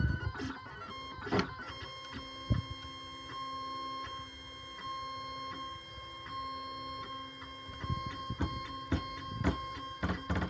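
3D printer's stepper motors whining in steady tones that step in pitch as the print head moves, with several sharp clicks and knocks, clustered towards the end.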